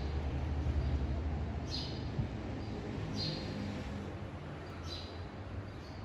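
Lovebirds giving short, high chirps, three in all about a second and a half apart, over a low hum that fades away.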